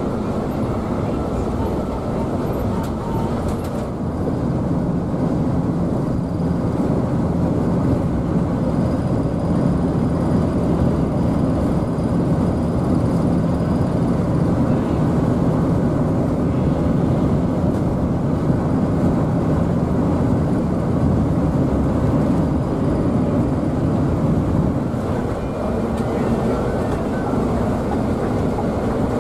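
Steady cabin noise inside a Scania K360iB coach cruising on a toll road: a low engine drone with tyre and road rumble.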